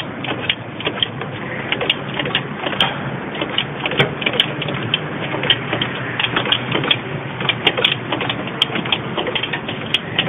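Irregular metallic clicks and scrapes of a socket wrench working a bolt loose on a Citroën C3's accessory-belt tensioner, over a steady low hum.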